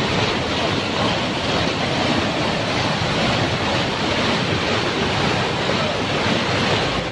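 Fast-flowing floodwater churning along a village lane in a steady, dense rush of water.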